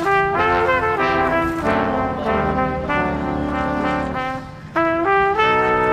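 Background music: a brass melody of short and held notes that changes pitch step by step.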